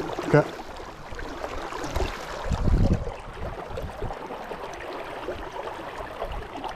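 Brook water running steadily, with a brief low rumble about two and a half seconds in.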